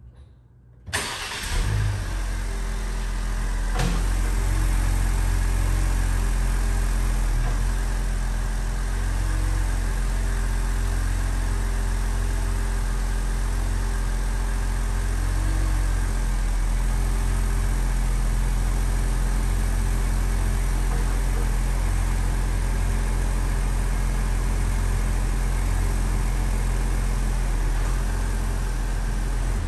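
Ford Explorer engine starting about a second in, then idling steadily, with a strong low rumble.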